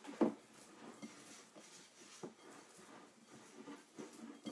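Hands kneading and squeezing soft tart dough in a glass bowl: irregular soft squishes and pats, with one louder thump about a quarter second in.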